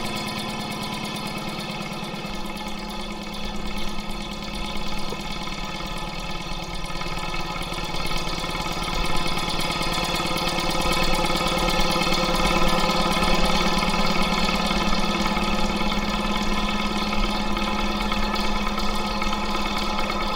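Trams at a street stop giving off a steady machine hum made of several held tones, which grows somewhat louder about eight seconds in.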